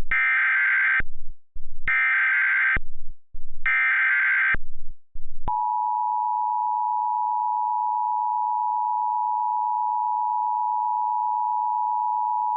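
Emergency Alert System header: three bursts of screechy digital data tones, each about a second long with short gaps between them. About five and a half seconds in, the steady two-tone EAS attention signal begins.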